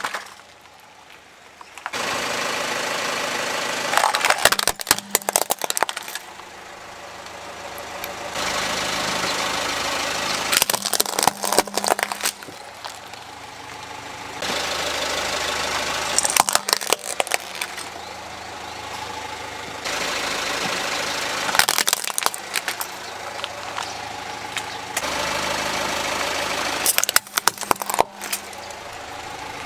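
A hard plastic toy cracking and snapping under a car tyre in short crunching bursts, five times over, with the car's engine running steadily between them.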